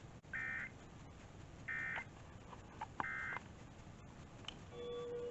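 Three short bursts of Emergency Alert System SAME data tones, the rapid two-tone digital chirp, about a second and a half apart: the end-of-message code that closes an alert broadcast. A steady low tone starts near the end.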